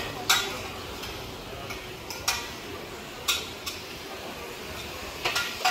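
Scattered sharp metallic clanks and clinks of cookware and dishes, about five over a few seconds, each with a brief ring, over a steady background hum.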